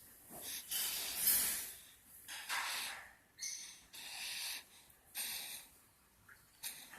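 A sleeping child snoring: a run of short, hissy, noisy breaths, about one a second.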